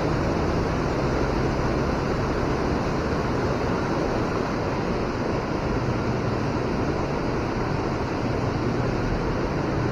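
River water rushing steadily, an even unbroken sound of current.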